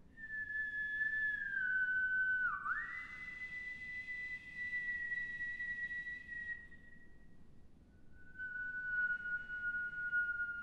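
A mezzo-soprano whistling two long, clear notes in an unaccompanied contemporary vocal piece. The first note sags, dips sharply and swoops back up about two and a half seconds in, then holds steady. After a short break a second, slightly lower note drifts gently downward.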